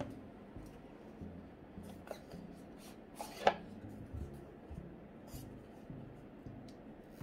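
Watch presentation box being handled and opened by hand: faint rubbing and light taps of the box, with one sharper tap about three and a half seconds in.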